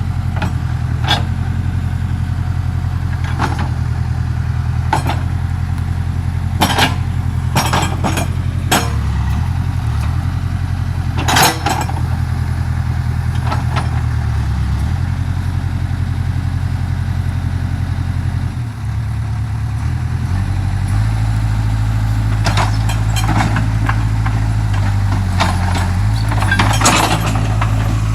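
Old backhoe's diesel engine running, its engine speed shifting several times, sagging briefly about two-thirds of the way through and then running higher. Several short sharp clanks or knocks sound over it.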